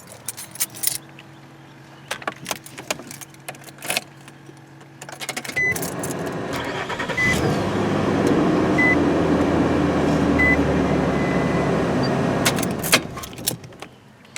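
Keys jangling, then the truck's engine starts about five seconds in and runs steadily while a chime beeps about every second and a half, before it is switched off near the end. It starts without trouble: the battery still has enough charge after powering the fridge overnight.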